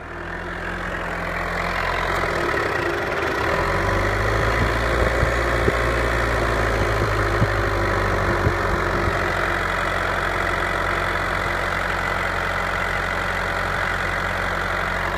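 Car engine idling steadily, growing louder over the first couple of seconds as it is heard close up in the open engine bay, with a few light clicks in the middle.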